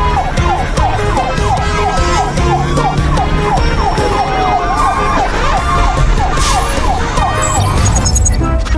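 Siren-like wailing tone made of short falling sweeps repeating about three times a second, with a longer gliding sweep near the middle, over background music with a steady bass beat.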